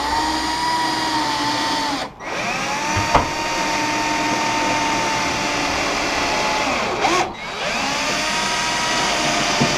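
Cordless drill running at full speed in three long runs, each spinning up and winding down, as it pre-drills 1/8-inch holes in timber framing. There is a sharp click about three seconds in.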